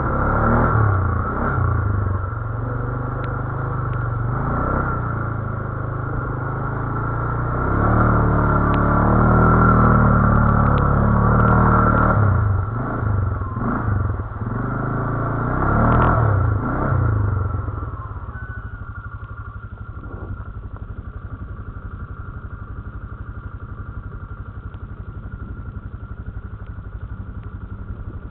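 GOES 520MAX ATV engine, heard close from a camera mounted on the quad, revving up and down under load over a rutted mud trail, with some clatter. About 18 seconds in it drops to a steady, quieter idle.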